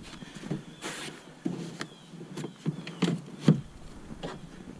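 Irregular handling noises from a kayak seat being worked on: fabric rustling and light plastic knocks and clicks as the seat pad and its straps are pulled and fitted into place, with the sharpest knock about three and a half seconds in.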